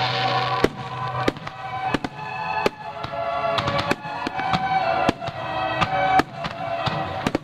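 Aerial firework shells bursting in quick succession, over music with a steady beat.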